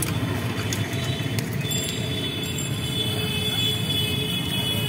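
A steady low rumble of vehicle noise, with a faint high whine joining about two seconds in.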